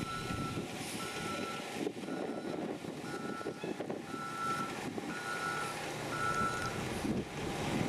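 A single-pitch electronic beep repeating about once a second, seven beeps in all, over a steady background of outdoor noise.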